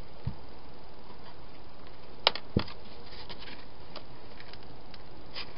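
Steady hiss from a trail camera's microphone, with a soft knock early and two sharp clicks about two and a half seconds in, plus a few faint ticks: an animal moving about the plastic hedgehog feeding box.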